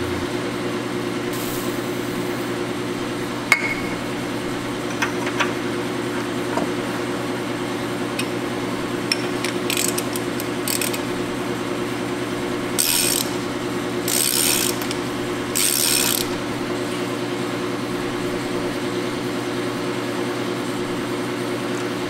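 A ratchet driving a tap through the threaded head-bolt holes of a cast-iron Caterpillar 1693 engine block, clicking now and then as it is worked back. A steady hum runs underneath, and three short hisses come about two-thirds of the way in.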